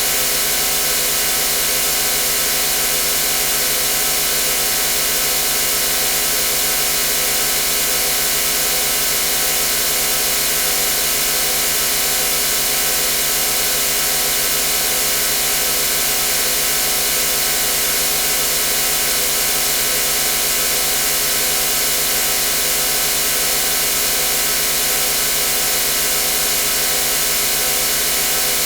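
Self-made machine-room sound effect imitating rotating machinery such as motors: a steady hum of many tones over a hiss, with a regular throbbing 'waan-waan' beat like a running motor.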